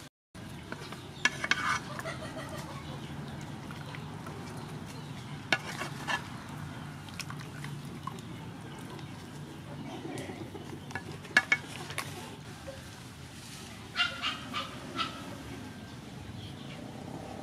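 A metal spatula scraping and clinking against a frying pan as beef stir-fry is lifted out, a handful of sharp clinks spread through, over a steady low rumble.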